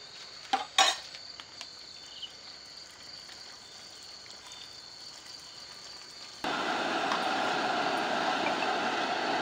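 A couple of sharp metal clinks from a utensil against the aluminium cooking pot, then a faint hiss. About six and a half seconds in, a louder steady rushing noise starts abruptly and keeps going.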